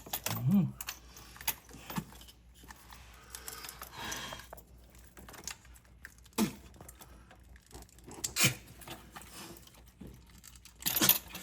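Scattered light clicks, taps and clatter of metal engine parts being handled as a fuel rail and fuel injector are worked free, with a few sharper knocks.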